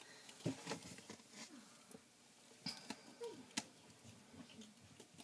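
Faint scattered taps and light knocks as a kitten is handled into a plastic bowl on a digital kitchen scale and shifts about inside it.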